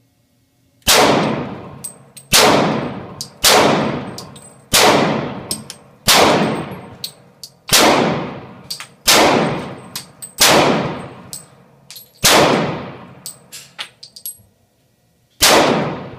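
Ten gunshots fired one at a time, roughly one every second and a half with a longer pause before the last, each echoing for about a second afterwards, with lighter clicks between some shots.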